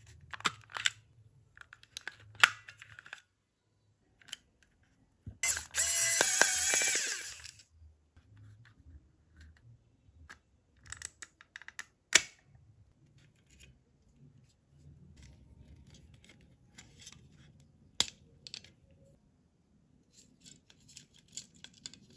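Plastic clicks and snaps as a Logitech M185 wireless mouse's shell is handled and pried open, with a loud scraping rustle for about two seconds near the five-second mark and sharp snaps about twelve and eighteen seconds in.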